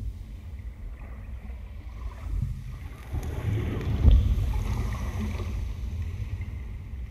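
Ambient electronic music: a low, rumbling wash of noise with no clear melody, swelling about three seconds in, peaking around four seconds, then easing off.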